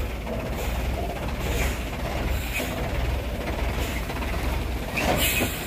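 Hino dump truck's diesel engine running at low revs, a steady low rumble with mechanical clattering and a louder burst of noise near the end.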